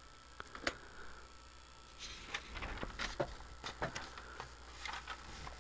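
Quiet room background during a pause in speech: a steady low hum with a few soft, scattered clicks and faint rustling.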